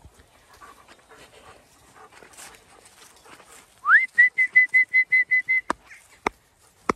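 A person whistling to call a flock of ewes in: about four seconds in, a whistle rises in pitch and runs straight into about ten quick repeated notes at one pitch. Three sharp clicks follow near the end.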